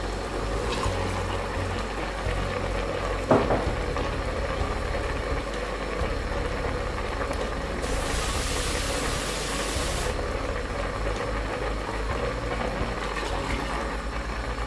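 Pot of stew boiling steadily on a gas stove as water is added from a bowl. There is a single knock about three seconds in and a brief bright hiss from about eight to ten seconds in.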